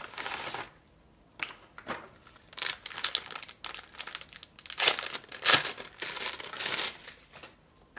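A kraft-paper envelope and plastic wrapping crinkling and rustling in irregular bursts as a parcel is opened by hand, loudest about five seconds in.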